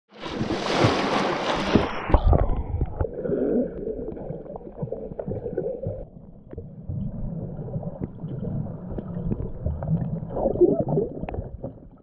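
Water heard through a camera held underwater: a bright rush of splashing and bubbles for about the first two seconds, then a muffled rumble with scattered knocks and bumps.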